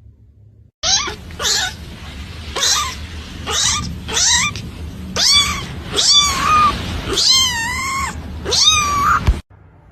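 A cat meowing over and over: about a dozen short, loud meows, each falling in pitch. The meows cut off suddenly near the end.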